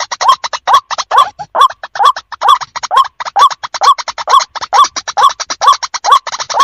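White-breasted waterhen calling over and over, about two arched notes a second with rapid harsh clicks between them, a loud, monotonous ruak-ruak.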